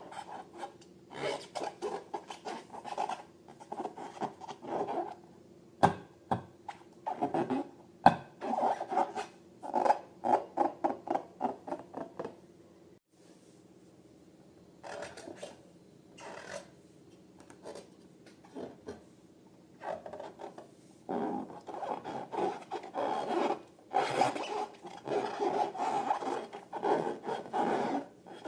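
Rubber balloons rubbed and squeezed by hand, in bursts of quick repeated rubbing strokes with short pauses. Two sharp snaps stand out, about six and eight seconds in.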